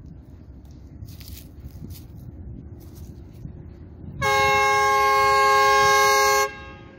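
Horn of an Lxd2 narrow-gauge diesel locomotive sounding one steady, loud blast of about two seconds, several tones at once, starting a little past halfway and cutting off sharply, over a low rumble.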